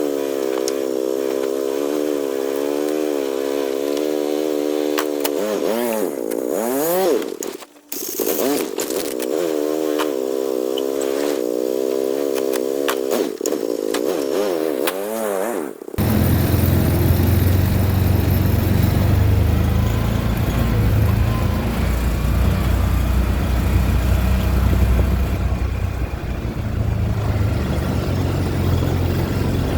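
Two-stroke chainsaw running, its pitch wavering up and down, cutting out for a moment about eight seconds in and picking up again. About halfway through the sound switches abruptly to a steady low engine rumble.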